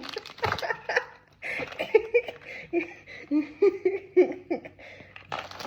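Girls giggling and laughing.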